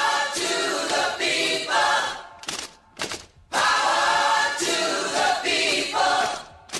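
A cappella vocal jingle: voices sing a short phrase, pause, then sing it again, each phrase trailing off into a couple of short clipped notes.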